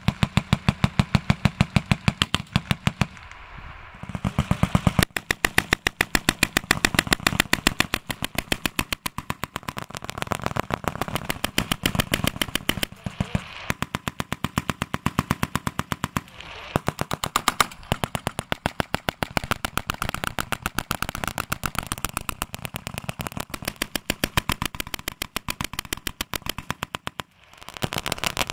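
Vickers .303 water-cooled machine guns firing together in sustained automatic fire, a rapid even stream of shots. The stream breaks off in short gaps a few times.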